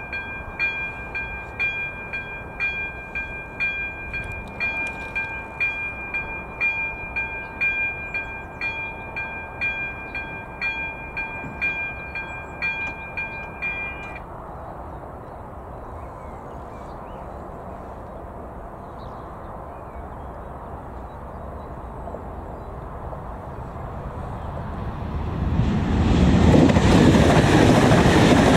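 Electronic warning bell (AŽD ZV02) of a Czech level crossing ringing at just under two strokes a second, stopping abruptly about halfway through with the barriers down. Over the last few seconds the loud rush of a ČD class 680 Pendolino electric trainset passing the crossing rises.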